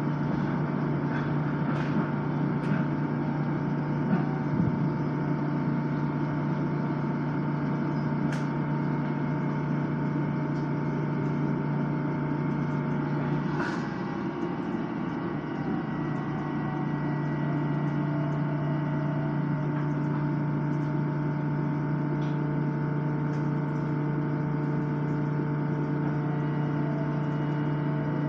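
Steady interior hum of an LIRR M7 electric railcar, with a few scattered clicks and a sharper knock about halfway through.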